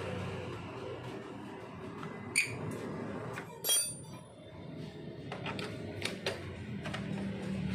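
Metal clinks and knocks of tools or parts being handled, with one louder ringing metallic clang near the middle, over a low steady hum.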